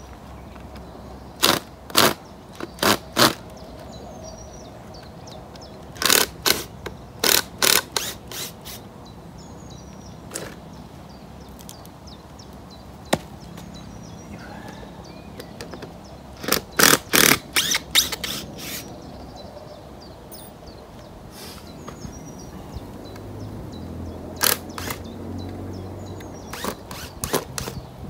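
Clusters of short, sharp knocks and scrapes from tool work on the plywood forms around set concrete pads, three to six in a quick run, four times over. Faint bird chirps come between the runs.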